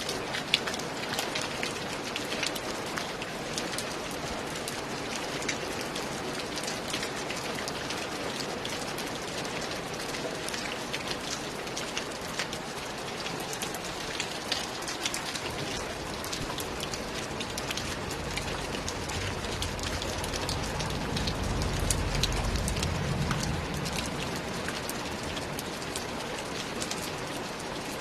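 Steady heavy rain, an even hiss dense with sharp ticks of individual drops striking a surface. Partway through, a low rumble swells for several seconds and then fades.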